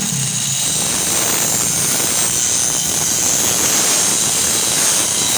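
Steady, loud hissing rush of metalworking on an iron cot frame, running without a break.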